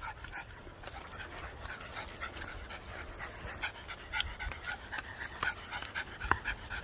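Two small dogs panting quickly as they walk on leash along a dirt trail, with light footsteps and a sharper tick about six seconds in.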